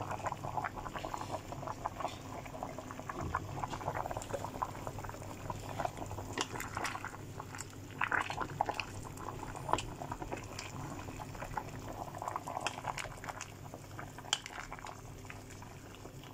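Pot of pork-bone and abalone soup at a strong boil, bubbles popping in a dense, irregular crackle over a low steady hum. The soup is nearly done after an hour and a half of boiling.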